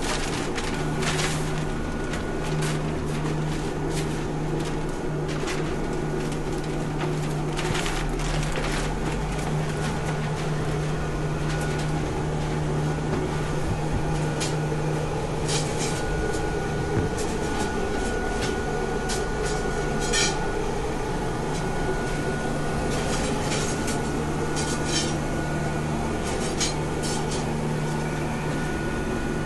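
Steady machine hum in a blacksmith's workshop, with scattered short metallic clinks and taps at irregular times.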